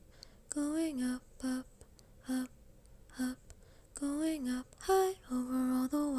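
A woman singing a string of short, clipped notes, mostly on one pitch with a few that slide up and back down, unaccompanied, with quiet between the notes.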